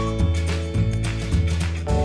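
Background music with a steady beat and a bass line that changes note about every half second.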